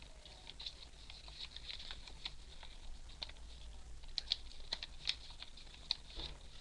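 Paper being folded and creased by hand: irregular light rustles and crisp little clicks as the sheet is moved and pressed flat, a few sharper ones in the second half.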